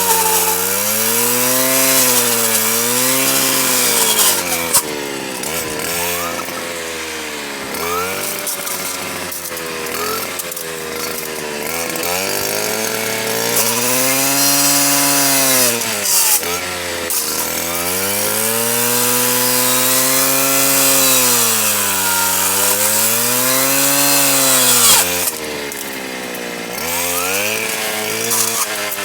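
STIHL KA 120 R power head driving a circular saw blade fitted with chainsaw teeth, cutting; the motor's pitch keeps dropping as the blade bites in and rising again as it frees.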